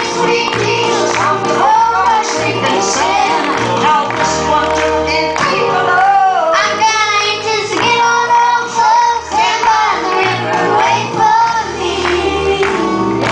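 Southern gospel singing: children and a woman sing into handheld microphones over instrumental accompaniment with a steady bass line.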